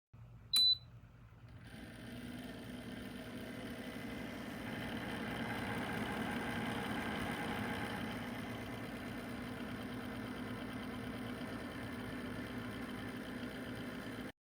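A single short electronic beep from the Dreo ceramic space heater's controls, then its fan starts about two seconds in and runs as a steady, fairly quiet whir that builds over the next few seconds before levelling off.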